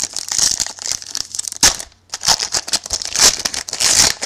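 Shiny foil wrapper of a 2011 Playoff Contenders football card pack being torn open and crinkled by hand: dense crackling in two spells, with a short pause about two seconds in.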